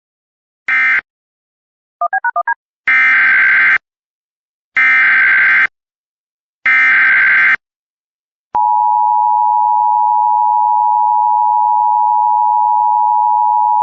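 Emergency Alert System tones: the last short SAME data burst of an end-of-message, four quick beeps, then three longer SAME header data bursts about two seconds apart. At about eight and a half seconds the steady two-tone EAS attention signal starts and holds.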